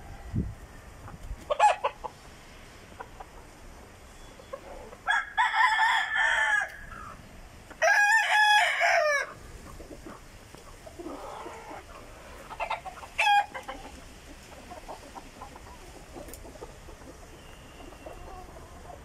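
Roosters crowing twice in a row, about five and eight seconds in, each crow about a second and a half long, with a few short clucks before and after.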